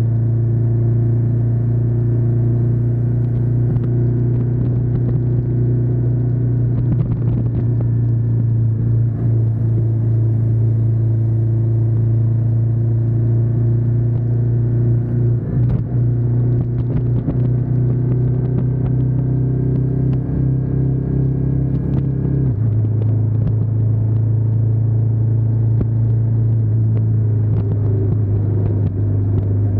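Ducati Diavel 1260S's 1262 cc V-twin engine running at a steady cruising pitch, picked up by a camera mounted on the back of the bike. About 22 seconds in, the engine note drops abruptly to a lower steady pitch and holds there.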